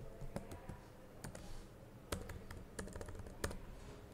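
Computer keyboard typing: faint, irregular keystrokes, a handful of clicks a second.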